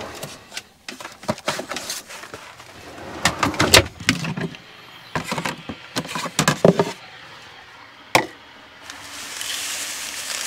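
Camper van kitchen storage being worked: a pull-out pantry drawer and an overhead cabinet opened and shut, with knocks and clatter of containers and utensils as breakfast things are taken out. A soft hiss comes in near the end.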